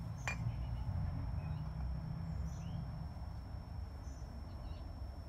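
Steady low outdoor rumble with a few faint bird chirps, and one sharp click about a third of a second in as the brake caliper is handled.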